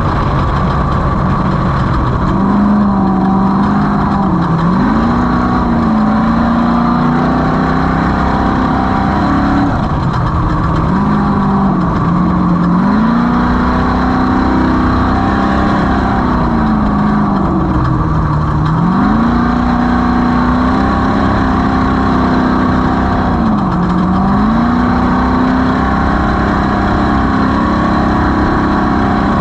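Off-road race vehicle's engine running hard and steadily loud. Its pitch dips and climbs back four times, about every six seconds, as the revs drop and recover.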